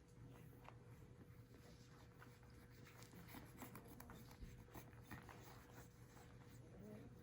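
Faint, scattered small clicks and scratches over a steady low electrical hum.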